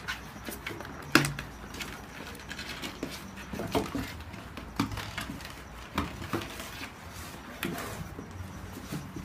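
Whippet puppies scrabbling and tumbling in and around a cardboard box: irregular scratches, scuffles and knocks of paws and bodies against the cardboard, with one sharp knock about a second in.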